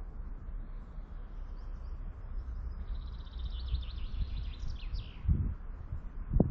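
A songbird sings a quick run of high, rapid notes with a few falling sweeps in the middle, over a steady low outdoor rumble; a low thud comes near the end.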